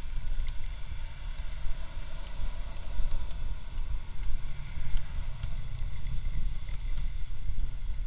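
Motorcycle riding at speed: low wind rumble buffeting the microphone over the engine and tyre noise on wet asphalt, with the loudness rising and falling unevenly.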